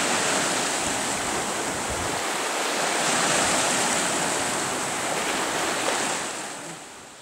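Small sea waves breaking and washing over a pebble shore: a steady surf hiss that swells a little in the middle and fades out near the end.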